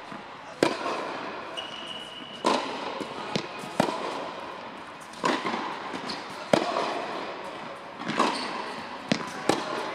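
Tennis balls being struck by rackets and bouncing on a hard indoor court during a cross-court backhand rally, a sharp pop every second or so, echoing in a large hall. A brief high squeak sounds about one and a half seconds in.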